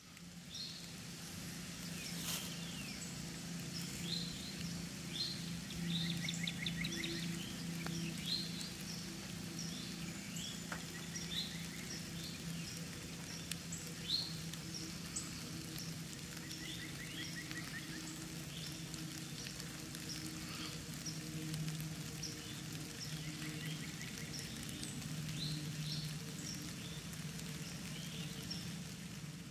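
Woodland ambience: birds chirping with the odd rapid trill, over a steady low hum and a light hiss.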